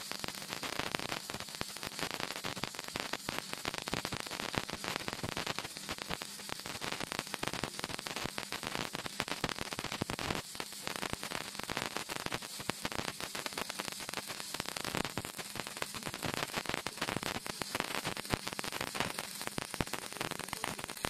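Stick (shielded metal arc) welding: the arc of a 6013 electrode crackling steadily without a break as it lays a bead on steel.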